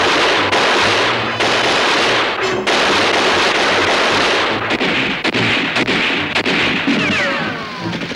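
Heavy gunfire from a battle scene's sound effects: a dense, continuous barrage for the first four seconds or so, then separate shots with a falling whistle near the end.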